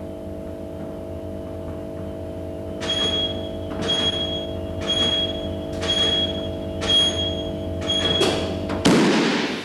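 Steady electrical mains hum, with six short high beeps about a second apart, then a sudden loud bang near the end that dies away: a 630 A moulded case circuit breaker interrupting a 63 kA short-circuit fault.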